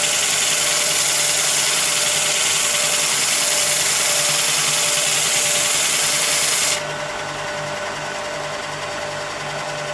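Charnwood BD46 belt and disc sander, driven by a 450 W induction motor, running steadily with a loud hiss and a steady hum. About seven seconds in, the hiss drops noticeably while the motor keeps running.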